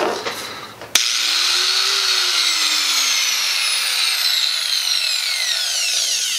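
Repaired angle grinder's electric motor switched on about a second in with a high whine. It winds up to speed within about a second, then its pitch falls steadily as it slows, until the sound cuts off near the end. The grinder runs again now that its failed switch has been replaced.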